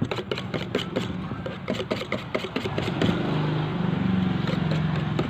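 Wire whisk beating a thick cream cheese and cream mixture in a stainless steel bowl, clicking against the bowl about six times a second. From about three seconds in, a steady engine hum joins and is louder than the whisking.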